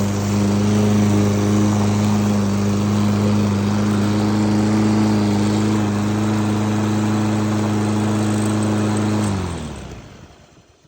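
Lawn Boy AWD push mower's small petrol engine running steadily, then shut off about nine seconds in, its note falling as it winds down to a stop. The owner puts its running down to an air leak that needs new gaskets.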